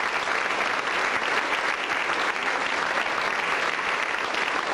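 Studio audience applauding, a steady clapping that holds at an even level throughout.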